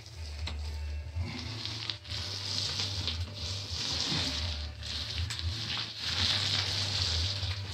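A nap roller on an extension pole rolling a wet coat across a ceiling: a sticky, crackling hiss that swells with each push-and-pull stroke, roughly every second or two, over a steady low hum.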